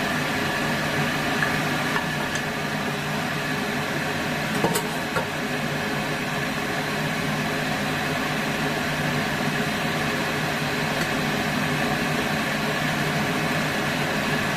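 Steady whirring hum of a kitchen fan. A few light clicks of a wooden spatula on the pan and bowl come about two seconds and about five seconds in.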